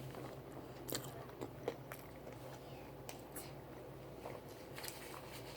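Close-up chewing of fried chicken: a scattering of short, soft mouth clicks and smacks.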